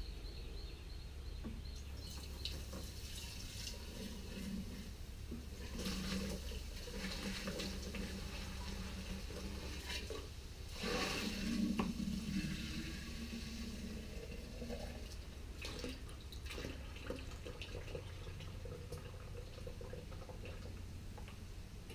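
Liquid poured from a bucket into plastic containers, in several uneven pours, the loudest a little past the middle. A steady low hum runs underneath.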